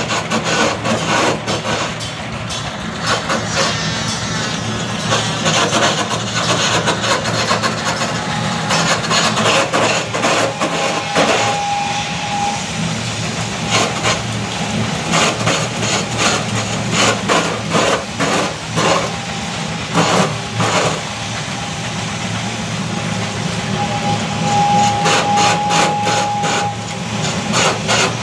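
Simple homemade lathe turning a coconut-palm wood (glugu) pole: the machine's motor hums steadily while the cutter scrapes and chatters against the spinning wood in many short rough strokes.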